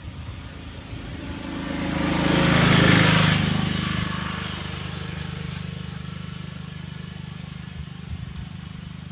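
A motor vehicle passing close by: engine and road noise swell to a peak about three seconds in, then fade, leaving a low, steady engine hum.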